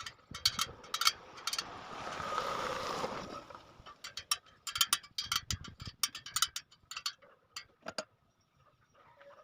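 Sharp metallic clicks and clinks from a spoke wrench working the spoke nipples of a 36-spoke motorcycle rim while it is trued, with a brief rushing hiss about two seconds in.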